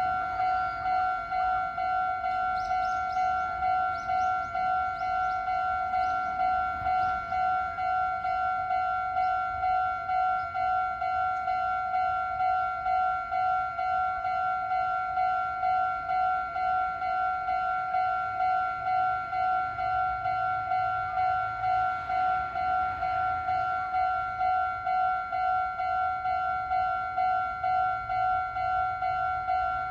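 Japanese railway level-crossing alarm ringing: an electronic two-tone bell repeating evenly, just under two strikes a second, warning that a train is approaching.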